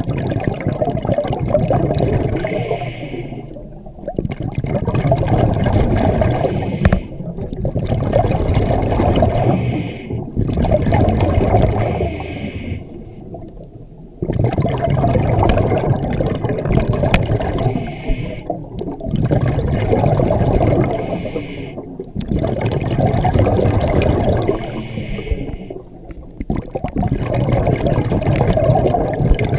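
Scuba diver's regulator breathing underwater: slow repeating breaths, each followed by a few seconds of rumbling exhaled bubbles, about seven cycles in all.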